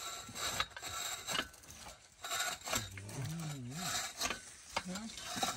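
Hand-worked borewell drilling rig being worked by its long wooden lever, giving repeated rasping, rubbing strokes of wood on wood. A low wavering voice sounds about three seconds in.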